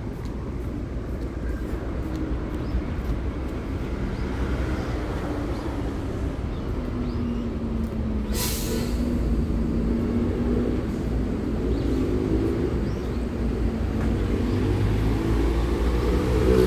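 City street traffic: a steady rumble of engines, with a short hiss of a bus's air brakes about eight seconds in. Near the end a vehicle's engine rises in pitch as it accelerates.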